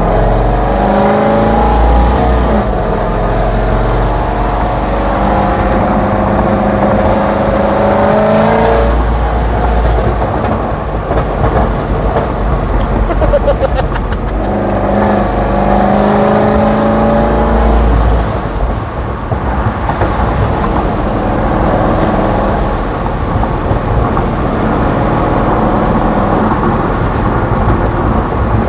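A C6 Corvette's V8 running through a loud aftermarket exhaust under acceleration, with two long pulls about a second and fifteen seconds in, each climbing in pitch before dropping off. Between and after the pulls the engine runs lower and rougher at part throttle.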